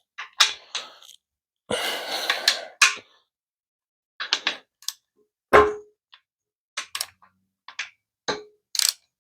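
Scattered metallic clanks and clicks of tools and transmission parts being handled, with a second-long scrape early on. A louder clank about halfway through and another near the end each ring briefly, like a metal part struck.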